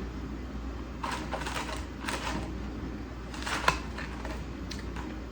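Close-miked chewing of a burger: a few bursts of mouth sounds and clicks, with one sharp click about three and a half seconds in.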